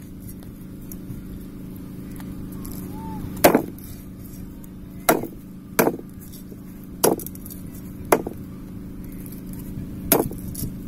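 Meat cleaver chopping beef leg pieces on a wooden chopping board: six separate sharp chops at uneven intervals, the first about three and a half seconds in.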